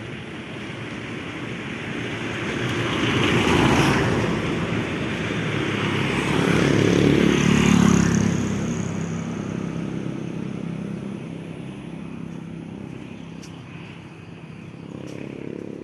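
Motor vehicles passing by on a road: one swells and fades about four seconds in, and a louder one with an audible engine note passes around seven to eight seconds in.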